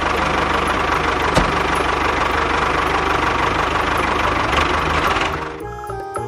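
An engine running steadily with a fast knocking beat. It fades out about five and a half seconds in as background music with jingly notes takes over.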